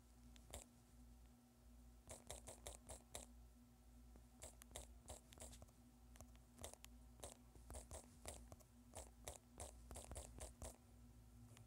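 Faint taps and clicks of typing on a phone's touchscreen keyboard, coming in quick runs of several a second with short pauses between words, over a faint steady hum.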